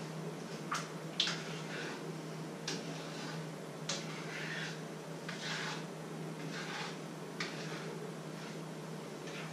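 A cooking utensil stirring and scraping in a pan, with a few sharp clicks and taps against it, over a steady low hum.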